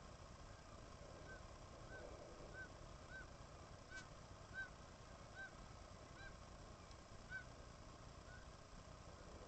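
A bird calling one short, faint note over and over, about ten times, with the calls spacing out toward the end.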